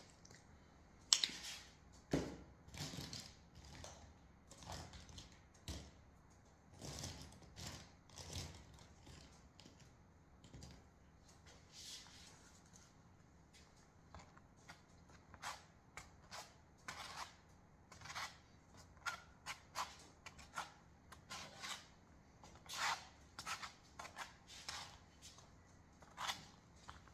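A flat paint scraper dragged through wet paint across a canvas, in a run of short, irregular scraping strokes.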